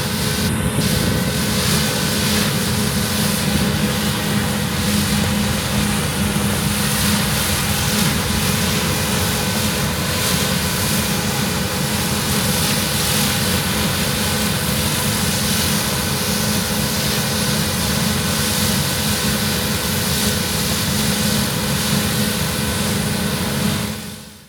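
Claas Lexion combine harvester running while harvesting wheat: a steady engine and machinery drone with a constant low hum, fading out just before the end.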